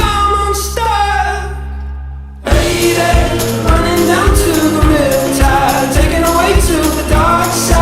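Pop music with singing. About two and a half seconds in, a held note fades out and a different song with a steady beat and a singer cuts in.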